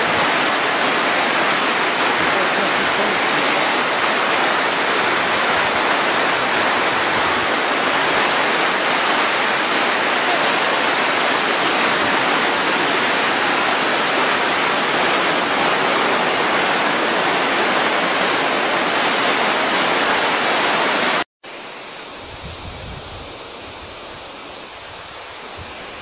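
Steady, loud rush of a mountain river and waterfall pouring over rocks. About 21 seconds in it cuts off abruptly and is replaced by a quieter rush of water with low, uneven wind buffeting on the microphone.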